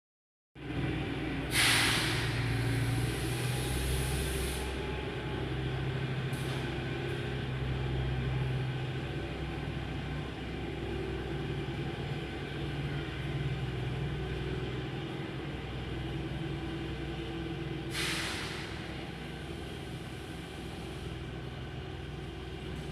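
A train's engine running steadily, with two short bursts of hissing air, one near the start and one about eighteen seconds in.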